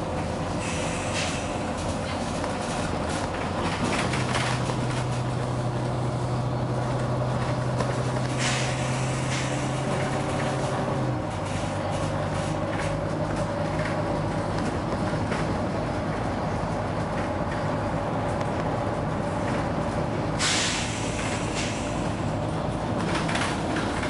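Volvo B9TL double-decker bus under way, heard from inside the passenger saloon: a steady engine and driveline note that holds one strong tone and then steps down about eleven seconds in. Short bursts of hiss from the bus's air system come through, the longest about twenty seconds in.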